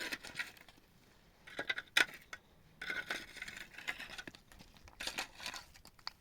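Rustling and crinkling handling noises in several irregular bursts, with a sharp click about two seconds in.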